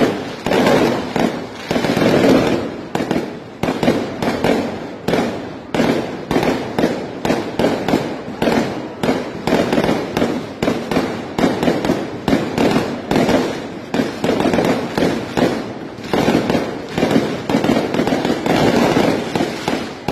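Aerial fireworks bursting in a continuous rapid barrage of bangs and crackles, several a second, swelling louder about two seconds in and again near the end.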